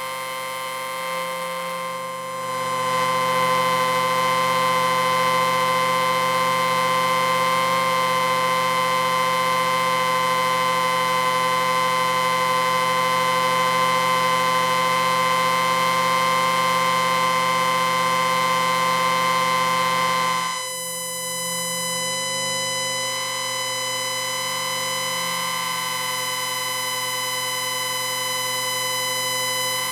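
Electrical distortion sound effect: a harsh, steady buzzing drone with many overtones. It grows louder a couple of seconds in, then drops and thins out suddenly about two-thirds of the way through.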